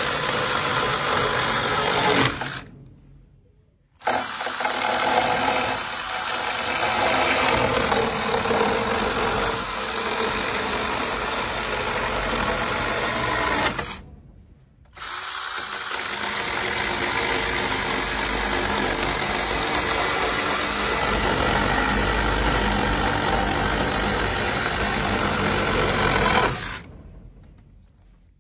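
Battery-powered KIMO mini chainsaw cutting through weathered wooden fence rails, its small electric motor and chain running hard in the wood. It stops briefly about three seconds in and again about fourteen seconds in, then cuts off for good near the end.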